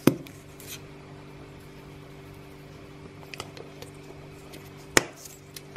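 Steady low hum with a sharp click near the start and another about five seconds in.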